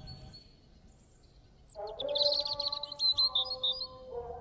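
Birds chirping, quiet at first, then a rapid, loud trill of chirps starting about two seconds in. Instrumental music comes in at the same moment with a slow melody underneath.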